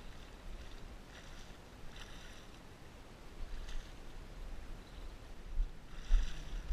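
Hooked nurse shark thrashing in shallow water, making short splashes, the loudest about six seconds in. Wind rumbles on the microphone throughout.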